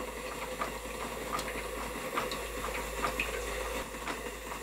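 Stuart Turner model steam engine running on steam and belt-driving a snap-together plastic beam-engine water pump, a quiet run with light, irregular ticks and clicks from the moving parts.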